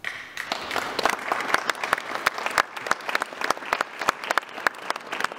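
Crowd applauding after a sung song. The applause breaks out suddenly, then goes on as a dense patter of many sharp claps.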